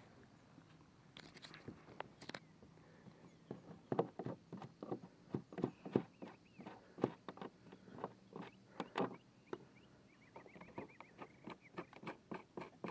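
Hands working the plastic drive cartridge and its lock knobs in a kayak's pedal-drive well: an irregular series of sharp plastic clicks and knocks, densest in the middle of the stretch.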